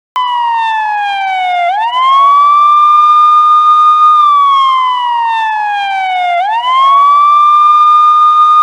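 Police car siren wailing loudly, cutting in abruptly. The tone slides slowly down, sweeps quickly back up and holds high for about two seconds, then slides slowly down again and sweeps back up to hold high.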